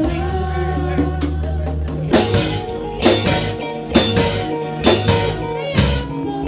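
Live band playing: bass, drum kit and congas, with sustained low bass notes at first and then strong drum hits about once a second from about two seconds in.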